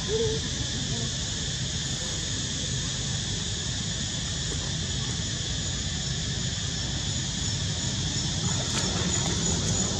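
Steady hissing background noise with no distinct events, and a brief short tone right at the start.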